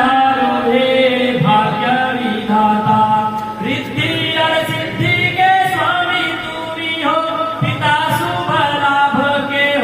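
Several voices in devotional chanting, sung on long held notes that shift pitch every second or so.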